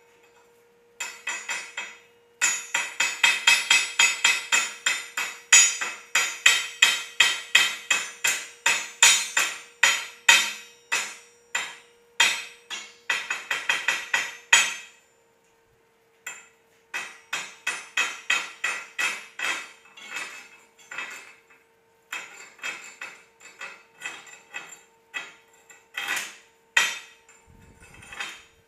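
Hammer strikes on steel plate, about three a second with a short ring after each. The sequence stops once about halfway through, then goes on lighter and less even. This is typical of chipping slag off freshly run 6010 stick-weld beads.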